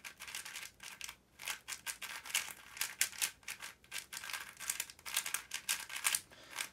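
Mystic MGC 4x4 plastic speedcube turned by hand for its first turns out of the box: a fast, irregular run of light clicks and clacks as its layers turn.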